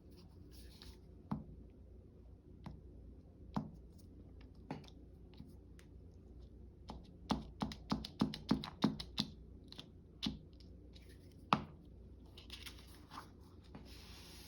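Paper and craft tools being handled on a work table: scattered light taps and clicks, with a quick run of about eight clicks around the middle.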